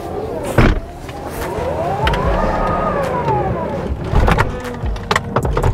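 Tesla Model X falcon-wing doors closing under power: an electric actuator whine that rises and then falls in pitch, with a thud about half a second in and a few knocks near the end as the doors shut.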